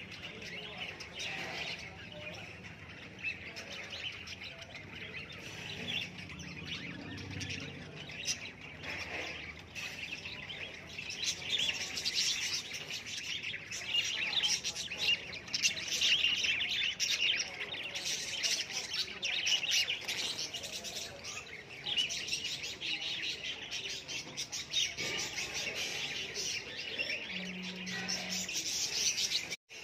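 A flock of caged budgerigars chirping and chattering continuously, busiest through the middle.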